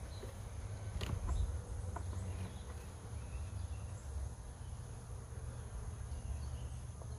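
Honeybees buzzing around an open hive, over a steady low rumble, with a couple of light knocks about one and two seconds in.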